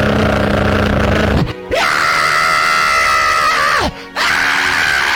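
Loud, long held wailing cries, each ending in a sharp downward slide in pitch, over music.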